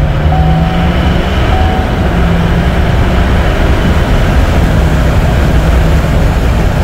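2018 L5P Duramax 6.6 L V8 turbo-diesel accelerating hard under full boost, heard from inside the cab with a steady low rumble and road noise. The exhaust manifold has been refitted after a broken stud let the number 7 cylinder leak past the gasket, and the squeal that leak caused is now gone.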